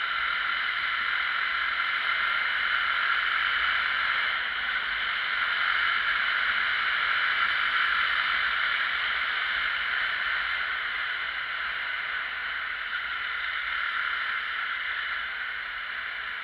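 Steady rush of wind and road noise from a motorcycle riding at about 80 km/h, with the wind buffeting the microphone and no clear engine note standing out.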